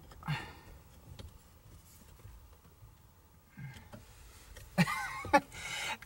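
A few light clicks and knocks from working at a truck's steering column to pull the turn signal switch lever, which will not come off. Near the end comes a man's short strained grunt and a breathy exhale.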